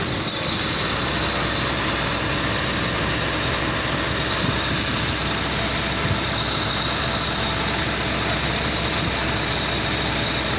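1985 Jaguar XJ6 Series 3's straight-six engine idling steadily, just after it has caught and started.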